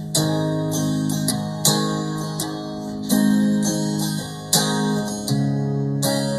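Instrumental song intro on acoustic guitar: strummed chords in a steady rhythm, changing chord every second or so, with no singing yet.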